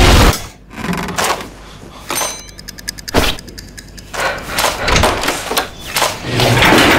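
Loud music and shouting cut off abruptly just after the start. Then come scattered clicks and knocks of a door being handled and opened, with a short rattle about two and a half seconds in and a sharper knock just after.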